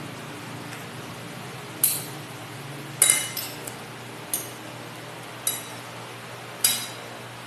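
Metal spoon and fork clinking against a plate while eating, about five sharp clinks at uneven intervals, the loudest about three seconds in.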